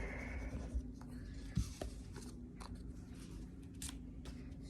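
Faint rustling and a few light taps of construction paper being handled and pressed down as a square is glued onto a paper craft, over a faint steady hum.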